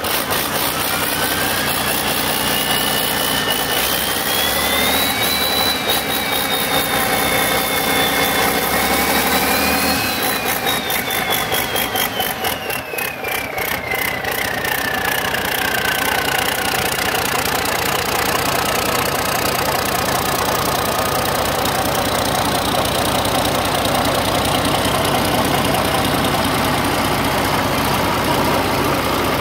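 LE404 V12 twin-turbo marine diesel engine running on a test stand. A high whine climbs with the revs over the first few seconds, holds, peaks about ten seconds in, then slides down as the engine settles to a steady idle.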